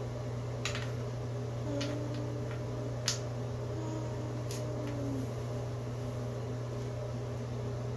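Steady low hum of room noise, with a few light clicks of wooden alphabet puzzle pieces tapped against the puzzle board, the sharpest about three seconds in.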